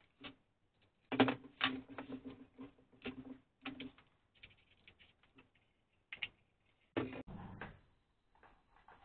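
Clicks, taps and rattles of the plastic housing and small parts of a mini cordless chainsaw being handled and assembled by hand. A quick run of clicking lasts about three seconds, lighter ticks follow, and a louder clatter comes about seven seconds in.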